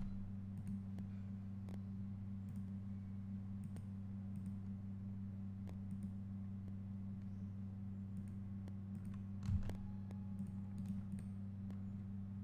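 Scattered computer mouse clicks over a steady low electrical hum, with one louder thump about nine and a half seconds in.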